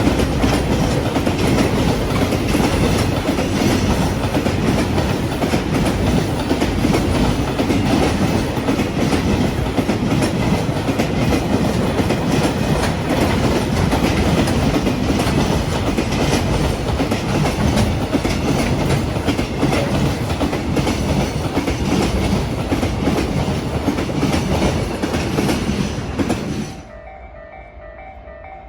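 Freight train running past close by: a loud, steady rumble and rattle of wagons on the rails. Near the end it cuts off abruptly, leaving a much quieter sound with a few steady tones.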